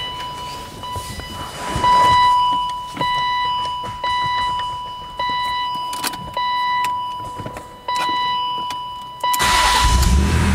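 Repeating electronic warning chime, sounding about once a second, with a few clicks from the BMW E36 M3's cabin. Near the end the car's straight-six engine starts and settles into a steady idle.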